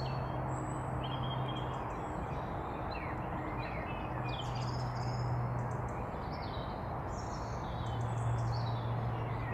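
Small birds chirping and singing in short calls and trills over a steady outdoor background hiss, with a low hum that comes and goes.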